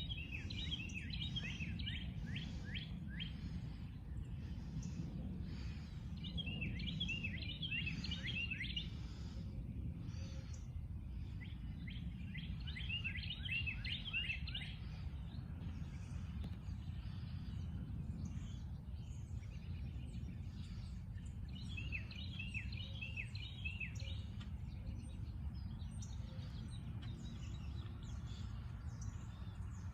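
A songbird singing the same short phrase of quick down-slurred whistled notes four times, several seconds apart, over a steady low background rumble.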